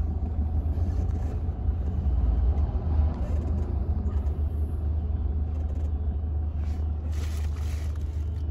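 Suzuki car's engine and road noise heard from inside the cabin as it moves slowly: a steady low rumble. A brief rush of noise comes near the end.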